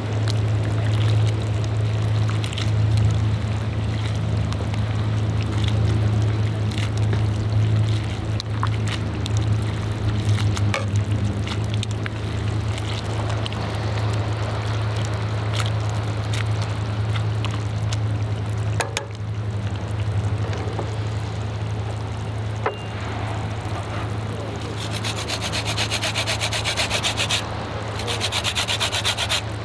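Metal tongs clicking against a steel pot as spaghetti is stirred in boiling water, over a steady low hum. Near the end, a lemon rasps against a fine metal grater as it is zested.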